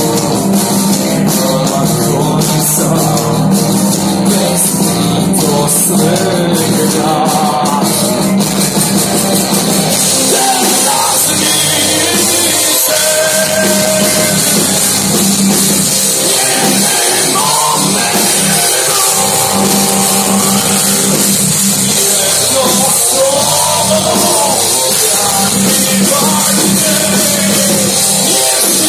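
Live metal band playing loudly: distorted electric guitars, drum kit and violin. The texture changes about ten seconds in, to heavier cymbals with a melodic line over the top.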